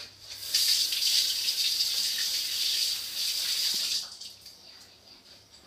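Kitchen tap running into the sink, a steady hiss for about three and a half seconds, then shut off.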